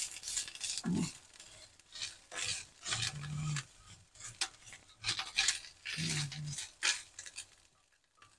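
A spoon stirring and scraping grated coconut and roasted spices around a stainless steel pan in irregular strokes. The burner is off, and the dry mix is being toasted in the pan's leftover heat.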